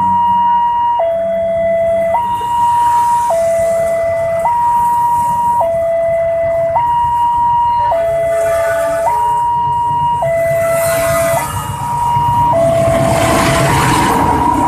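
Railway level-crossing warning siren sounding a two-tone alternating high and low note, each held about a second and a quarter, signalling an approaching train. From about 12 seconds in, the rumble of the train joins it, and near the end a freight train of fuel tank wagons rolls past close by.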